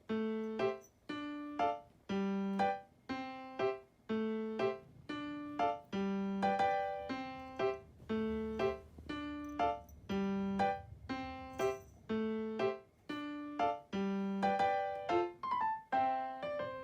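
Background music: a light piano tune of separate notes, about two a second, each struck and fading.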